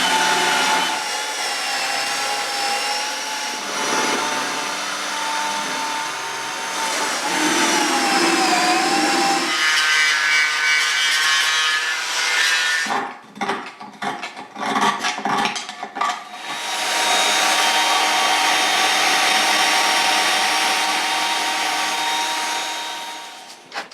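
Power tool spinning a paint-removal fleece against a steel motorcycle swinging arm, scouring off old paint and flaky rust; the motor whine dips and rises as it is pressed into the work. Midway it stops and starts in short bursts, then runs steadily again before winding down near the end.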